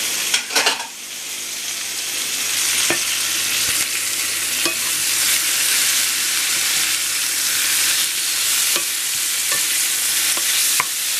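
Sliced fennel and asparagus sizzling in oil with garlic in a frying pan, stirred with a wooden spatula that knocks against the pan now and then over a steady frying hiss.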